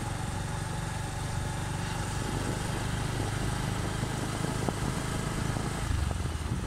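Motorcycle engine running steadily while riding along a road, with a constant rush of wind and road noise over the microphone.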